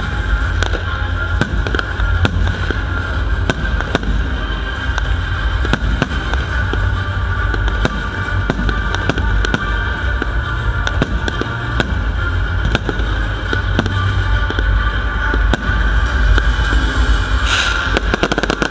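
Aerial fireworks display: a dense, continuous run of shell bangs and booms over a heavy low rumble, with a short bright crackling hiss near the end.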